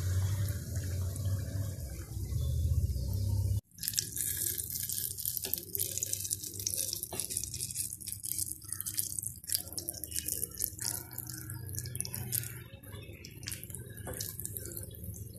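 Wheat-flour and egg batter deep-frying in hot oil in a metal wok, sizzling with a dense crackle. The first few seconds also carry a low hum; about four seconds in the sound cuts off abruptly and the crackling sizzle comes back sharper, thinning out towards the end.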